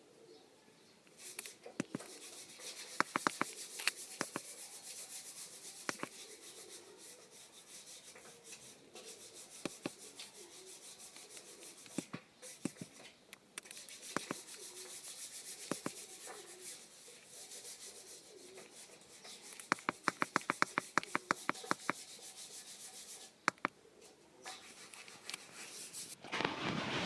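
Hand work on a car engine: steady rubbing with scattered sharp metallic clicks, and a quick run of about a dozen clicks around 20 seconds in.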